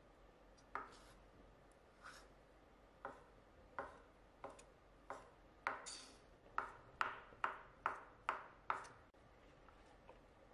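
Knife chopping food on a cutting board: about a dozen sharp cuts, spaced out at first, then quicker at about two a second, then stopping.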